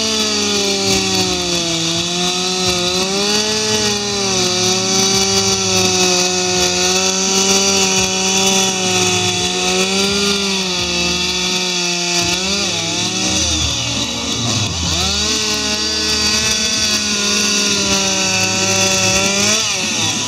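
Two-stroke chainsaw held at high revs while it cuts into a wooden log for a carving. The engine note sags and wavers about twelve seconds in, climbs back up a few seconds later, and drops off near the end.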